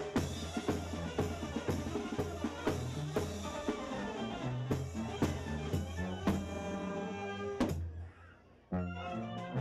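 Oaxacan folk dance music with a bass line and a steady drum beat; it breaks off briefly about eight seconds in, then starts again.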